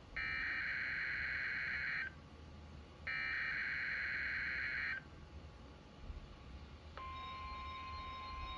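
NOAA Weather Radio test signal: two bursts of warbling digital SAME header data, each about two seconds long and a second apart. About seven seconds in, the steady 1050 Hz weather-alert warning tone begins.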